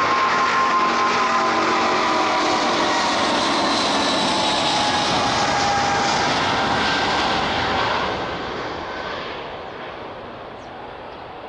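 Jet airliner's engines passing close, a loud steady roar with a faint whine that dips slightly in pitch, fading away from about eight seconds in as the plane moves off.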